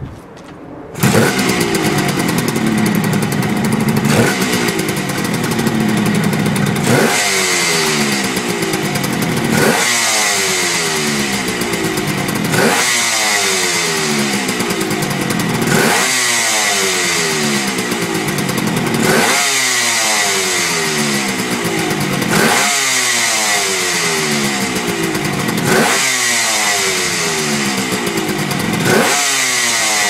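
Kawasaki 500SS Mach III's air-cooled two-stroke triple starting about a second in, then revved again and again, a sharp blip of the throttle about every three seconds, each dropping back toward idle.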